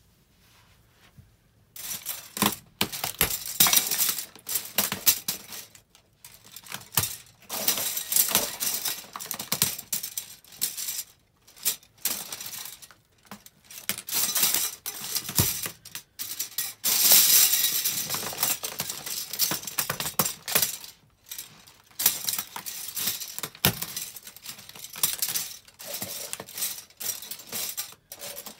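Pile of white disposable plastic spoons being stepped on and crushed underfoot: dense cracking and clattering of plastic, in bursts with short pauses, starting about two seconds in.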